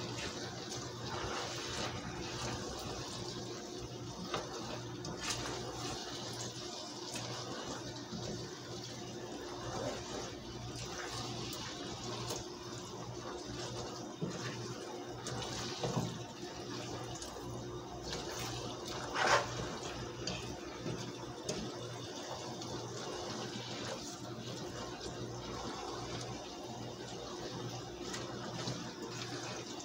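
Shredded cabbage and beef sizzling in a pot over a gas burner on medium heat, a steady hiss, with a spatula scraping and clicking against the pot now and then as the stew is stirred, the loudest knock about two-thirds of the way through.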